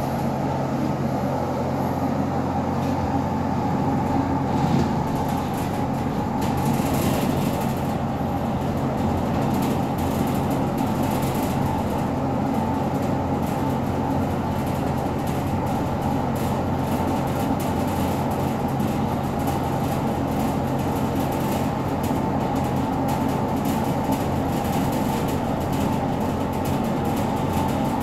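Fujitec passenger lift car travelling down many floors, heard from inside the car: a steady hum and rumble of the car in motion.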